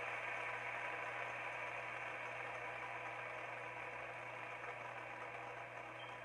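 Fidget spinner spinning on its bearing: a steady whir that slowly gets quieter.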